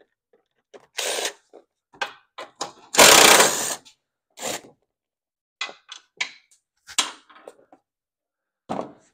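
Hand-tool work taking the 10 mm bolts and belt safety cover off a riding mower deck: two short bursts of noise, the louder about three seconds in, then a run of light clicks and knocks.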